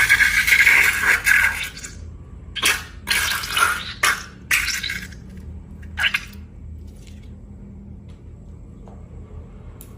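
Wet, sticky squishing of slime being worked by hand: a dense run of squelching at first, then a handful of short separate squishes that stop about six seconds in.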